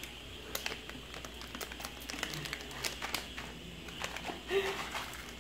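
Light crinkling and scattered faint clicks of a plastic packet of whole cloves being handled and shaken out over a pot.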